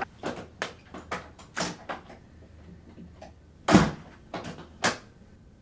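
A flat's front door being opened and shut: a quick run of clicks and knocks from the latch and door, then the door slamming shut about four seconds in, the loudest sound, followed by a smaller knock.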